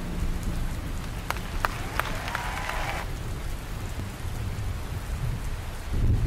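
Steady rain falling, a recorded rain ambience, with a few sharp drop hits about a second and a half in. A low rumble of thunder swells near the end.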